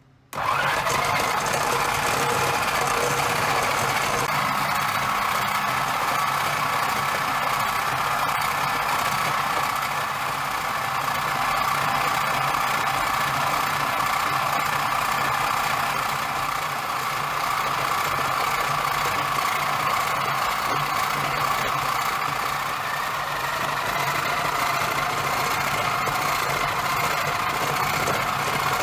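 Countertop food processor motor starting up and running steadily, kneading stiff bagel dough with butter just added.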